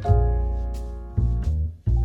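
Background music: a jazzy tune with a plucked bass line and piano or guitar chords.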